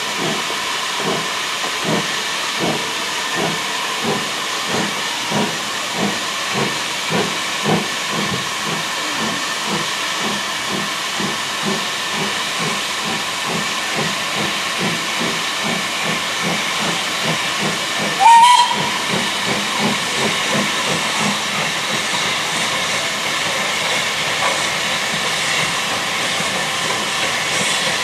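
LSWR M7 tank locomotive 30053 working a goods train: regular chuffing exhaust beats, about one and a half a second, over a steady hiss. About eighteen seconds in comes one short whistle blast that rises slightly in pitch, the loudest sound.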